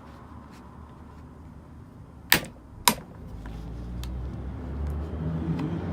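Two sharp cracks about half a second apart, a little over two seconds in: the glued plastic case of an Apple 87W USB-C power adapter snapping as it is pried open with a blade. A low hum builds up in the second half.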